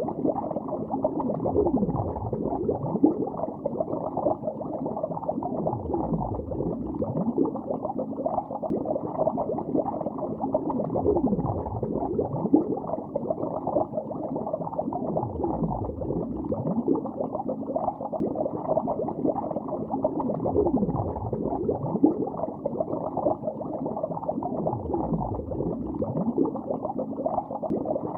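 Underwater bubbling in a lake, a continuous muffled gurgle with no high sounds. A sweep that dips in pitch recurs about every four and a half seconds.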